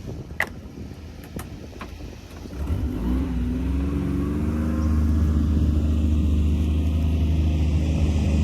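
Ego 56-volt battery lawn mower running through thick, tall grass, with a few light clicks at first. About two and a half seconds in, a steady low motor hum comes up louder, rising slightly in pitch before levelling off.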